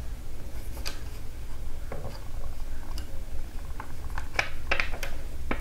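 Small, sharp clicks and taps of a screwdriver and tiny metal screws while the mounting screws of a laptop's 2.5-inch hard drive are being undone, a handful of irregular ticks with a quicker cluster near the end.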